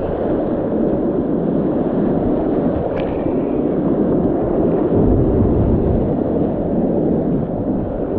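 Whitewater rapids rushing, a loud steady wash of water noise, with a brief click about three seconds in and a short low rumble about five seconds in.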